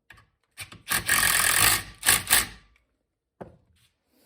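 Ratcheting torque wrench tightening bolts to 30 foot-pounds. A few short strokes lead into a dense run of quick ratchet clicks lasting about a second, followed by two short strokes and a faint click near the end.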